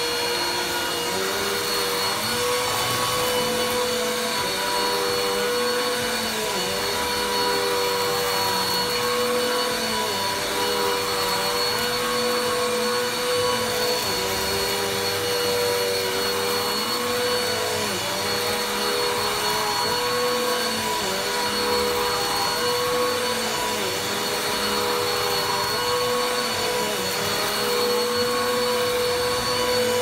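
Bissell bagless upright vacuum cleaner running on carpet as it is pushed back and forth, with a steady motor whine. A lower tone dips and recovers every second or two.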